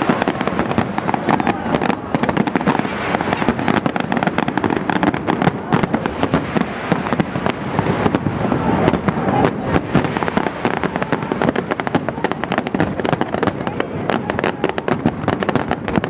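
Large fireworks display: a dense, continuous barrage of bangs and crackling with no pause.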